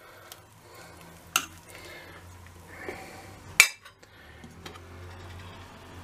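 Metal spoon stirring a stew in a stainless steel pot, with sharp clinks of spoon on pot, the loudest about one and a half and three and a half seconds in, over a faint low hum.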